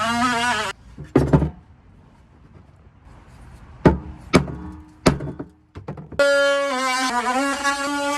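Power cutting tool with a steady, high buzz, cutting into the glued fiberglass battery shelf of a skiff. It stops about a second in. A few sharp knocks follow as the shelf is worked loose, and the tool starts cutting again for the last two seconds.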